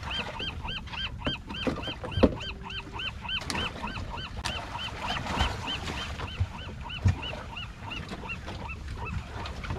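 Fishing reel squeaking once with each turn of the handle, about three squeaks a second, as a brown rockfish is cranked up to the boat. Two sharp knocks stand out, one a couple of seconds in and one near seven seconds.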